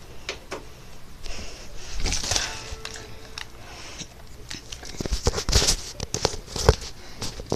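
Handling noise of a phone held close: scattered clicks and knocks with bursts of rustling, the loudest knock about two thirds of the way through.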